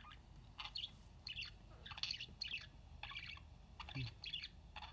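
Budgerigar chattering: a run of short, quick chirps, two or three a second.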